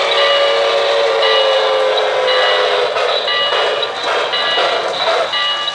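O-gauge model steam locomotive's electronic sound system sounding a steam whistle, its pitch sagging slightly over about three seconds, over the rhythmic running sound of the locomotive. After that the running sound continues on its own.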